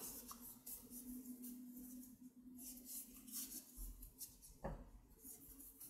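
Faint scratchy rustling of a metal crochet hook pulling yarn through stitches, with a faint low hum for the first couple of seconds.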